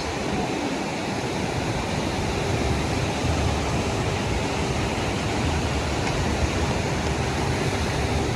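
Steady wash of sea surf breaking on a sandy beach, with wind rumbling on the microphone.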